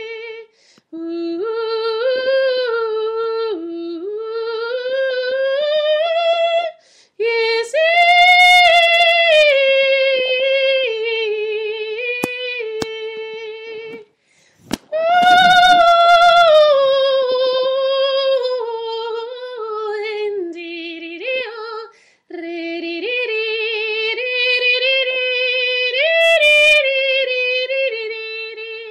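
A woman's voice singing long held, wordless notes without accompaniment, sliding slowly up and down between pitches, with short breaks for breath about every seven seconds.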